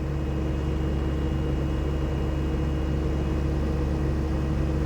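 Diesel engine of a SANY SY75C Pro excavator running steadily with an even, low hum while the machine is unloaded from its transport truck.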